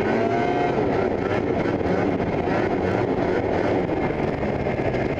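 Ski-Doo snowmobile engine running steadily while under way, heard from the rider's helmet camera.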